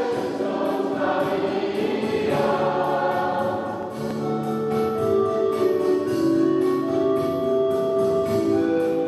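A mixed choir singing, with long held notes in the second half.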